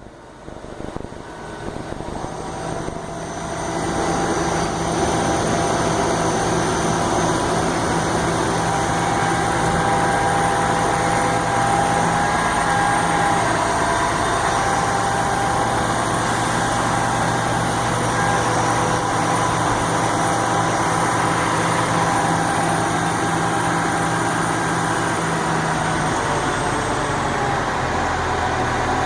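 A large engine running steadily. After a dip at the start it builds over the first few seconds, then holds level.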